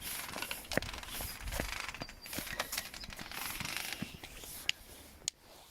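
Rustling and scraping on dry ground, with a few sharp clicks and taps scattered through it, from walking along carrying a stick; it fades near the end.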